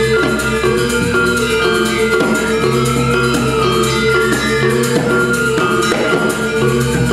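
Balinese gamelan playing: bronze-keyed metallophones ringing in fast, dense strokes over drums.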